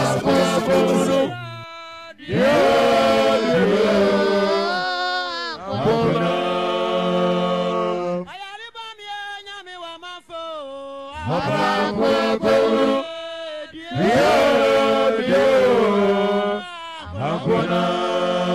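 Chanted vocal music: a voice sings in long held phrases that glide in pitch, with short pauses between them.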